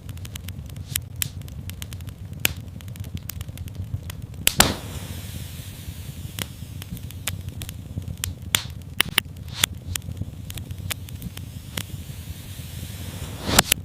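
Fireplace fire crackling: irregular sharp pops over a low rumble, with two louder pops, one about four and a half seconds in followed by a brief hiss, and one near the end.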